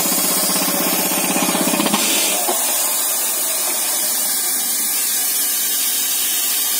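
MK5 compressed-air rock drill hammering rapidly over a loud hiss of air. About two seconds in the hammering stops and only the steady hiss of compressed air blowing through the drill goes on.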